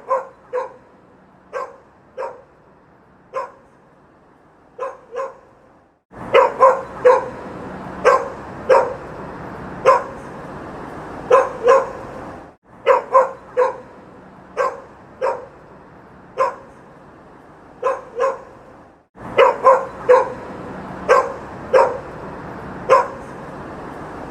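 A dog barking repeatedly in short single and double barks over steady city street ambience. The street noise cuts out and back in abruptly a few times, as the effect loops.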